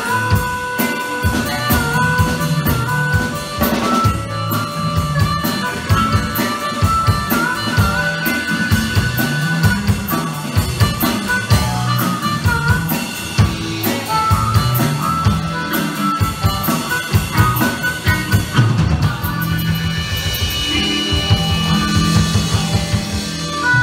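Live blues band playing an instrumental stretch: harmonica wailing over a repeating electric guitar riff and a drum kit. The drumming gets busier near the end.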